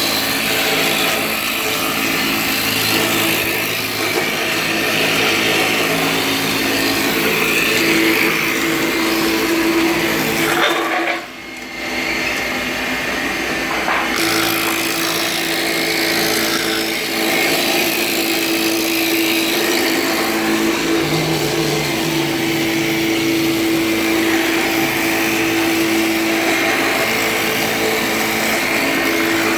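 Round-stick rounding machine running, its spinning cutter head shaping birch blanks into round handles: a steady motor hum under a wide hiss of wood being cut. The sound drops off briefly about eleven seconds in, then carries on.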